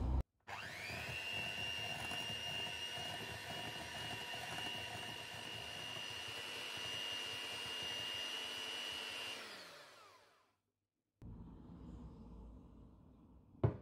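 Electric hand mixer with twin wire beaters whisking egg, cream cheese and spices in a glass bowl: the motor spins up quickly to a steady high whine, runs for about nine seconds, then winds down and stops. A single sharp knock comes near the end.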